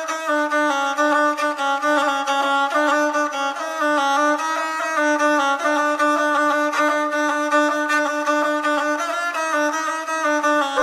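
Instrumental background music: a melody played over a steady held low note.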